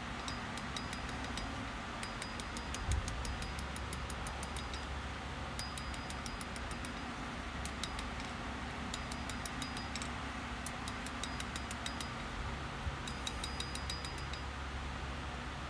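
Hand hammer striking a red-hot steel knife blade on an anvil while drawing taper toward the tip. The blows are quick and light, about five a second, in runs of a second or two with short pauses, each a sharp metallic tick with a faint ring, over a steady low hum.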